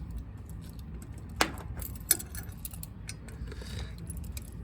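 Small clicks and metallic knocks of hands working on a fire alarm system to reset it, with two sharper clicks about a second and a half in and again a moment later, over a low steady hum.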